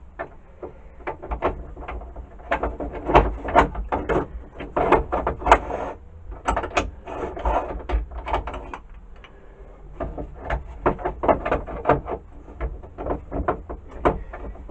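Clicks, knocks and rattles of the Black & Decker D-994 lathe attachment's headstock and its fittings being handled and fitted, some in quick clusters, with a short lull about six seconds in and another around nine to ten seconds.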